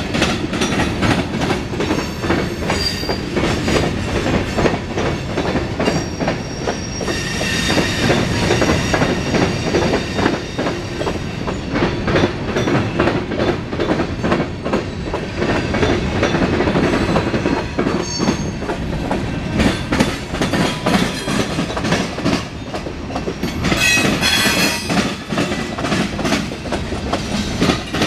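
Freight cars of a CSX mixed freight train rolling past with a steady clatter of wheels over rail joints. High squeals from the wheels come in twice, about a quarter of the way in and again near the end, as the train turns from southbound to westbound.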